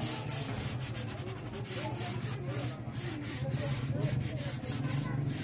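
Sandpaper rubbed by hand over a carved wooden tabletop in quick back-and-forth strokes, several a second.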